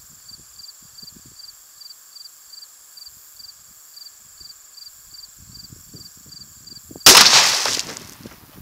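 A single rifle shot from a Savage Axis in .223: one sharp crack about seven seconds in that rings out and dies away over about a second. Before it, insects chirp steadily at about two to three chirps a second.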